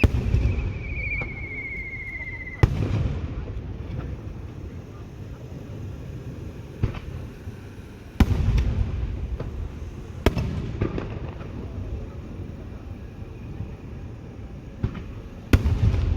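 Aerial fireworks shells bursting overhead: five sharp booms, each trailed by a low rumbling echo. A whistling shell's tone falls in pitch for the first couple of seconds, until the second boom.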